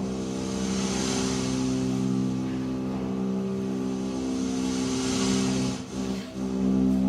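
A sustained chord held steadily in the background music under a hissing wash that swells twice, about a second in and again around five seconds. The sound briefly dips about six seconds in.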